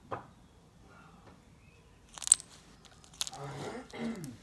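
Clear slime being handled and squished, with a short, sharp crackle about halfway through.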